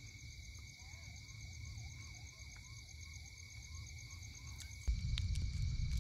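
A frog calling repeatedly, about three short rising croaks a second, over steady high-pitched night insects chirring. A low rumble comes in abruptly near the end.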